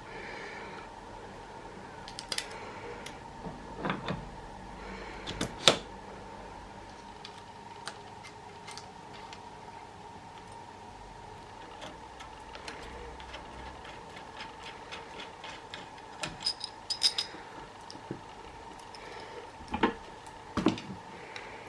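Scattered clicks, knocks and light rattles of handling, a few of them sharp, over a steady faint hum.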